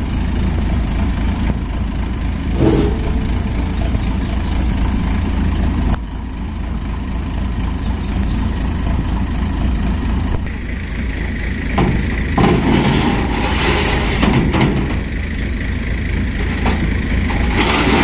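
Heavy machinery engine running steadily at idle, with a series of metal clanks and knocks in the second half.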